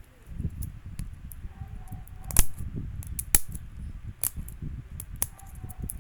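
Hands handling small toy blind-box packaging close to the microphone: a low rumbling handling noise with four sharp clicks about a second apart. The first click, a little past two seconds in, is the loudest.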